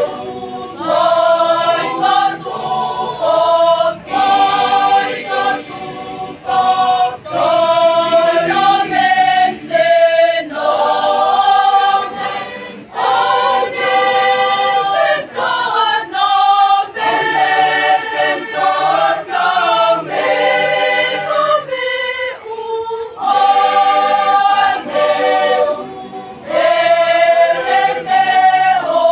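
Mixed choir singing in several-part harmony, in phrases of held notes with short breaks between them.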